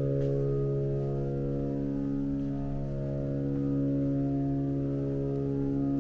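A sustained organ chord, several notes held steadily without change.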